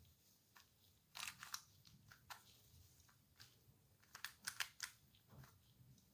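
Hands handling something plastic: quick clicks and crunches in two short clusters, about a second in and again about four seconds in, with a few single ticks between.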